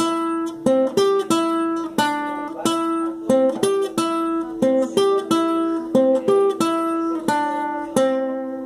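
Acoustic guitar strummed in a batuque rhythm: sharp chord strokes about every two-thirds of a second with ringing notes between them. A last chord comes near the end and is left to ring.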